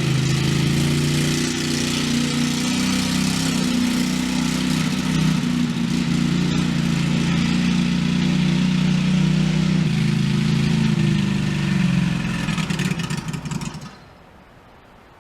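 Tractor engine running steadily under load while towing a loaded sled. The engine sound cuts off abruptly near the end.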